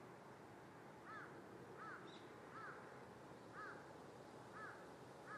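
A bird calling over and over: six short calls that rise and fall, about one a second from about a second in, over a faint steady hiss.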